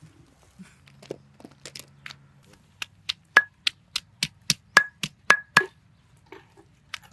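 A kitchen knife chopping food on a wooden board: a few scattered soft knocks, then a steady run of sharp chops about three to four a second, several with a brief metallic ring.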